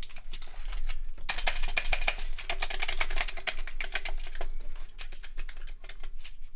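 Keys clicking and clattering on a loose Commodore 64 keyboard pressed by hand. A dense run of rapid clicks lasts about three seconds, starting just over a second in, then thins out to scattered clicks.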